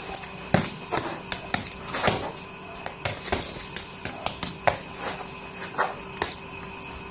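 Gloved punches landing on a hanging heavy bag: an irregular run of quick thuds, several a second, some hits much harder than the rest.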